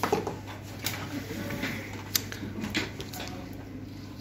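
Scattered clicks and knocks of a stripped-down laser printer's metal chassis and plastic parts being handled and set down, over a steady low hum.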